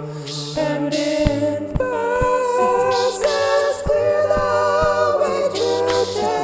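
Multitracked a cappella vocals from one male singer: several voice parts hold wordless chords over a sung bass line, with beatboxed kick-and-snare hits keeping time.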